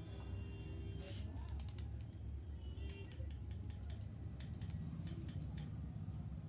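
Barber's scissors snipping beard hair over a comb, in quick runs of short sharp snips, over a steady low background rumble.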